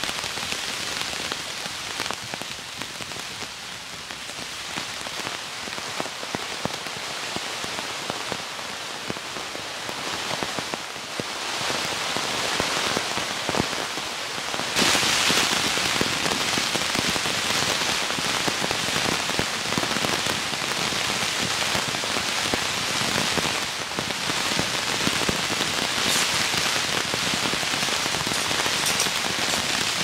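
Steady rain falling, with many separate drops striking close by over an even hiss. It gets suddenly louder about halfway through and stays heavier.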